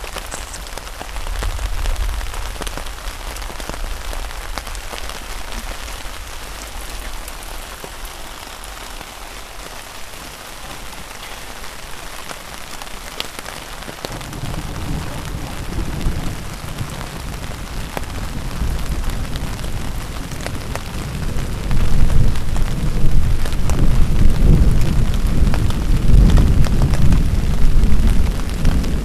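Thunderstorm: a steady hiss of rain with rolling thunder, a low rumble that builds from about halfway through and is loudest near the end, recorded on a pocket camcorder's built-in microphone.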